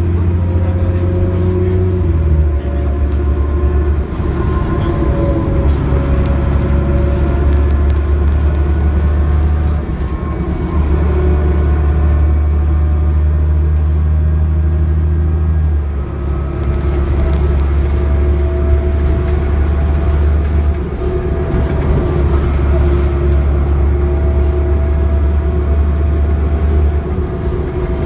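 The Cummins ISC diesel engine and Allison B400R automatic transmission of a 1998 New Flyer D40LF transit bus, heard from inside the cabin while the bus drives. There is a steady low drone, and over it a whine that rises in pitch and drops back several times.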